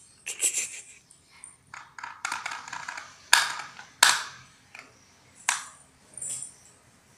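A baby's hands and metal wrist bangles tapping and slapping on a marble floor: a scatter of sharp clicks and knocks with short scuffs between them, the loudest two about three and four seconds in.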